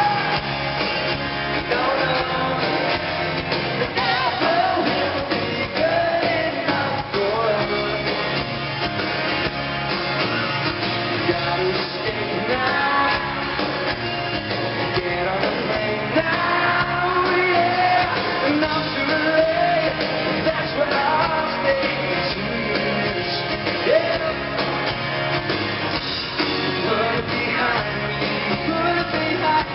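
Live pop-rock band playing an up-tempo song, with guitars, drums and singing, heard in a large arena hall.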